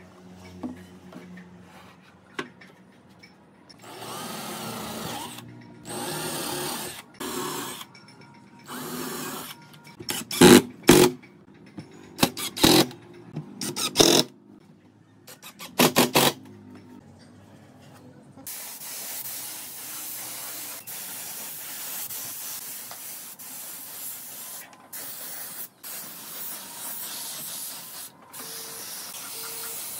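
Cordless drill driving screws into pine strips in a series of short bursts, the loudest a quick cluster in the middle. In the second half a steady hiss takes over.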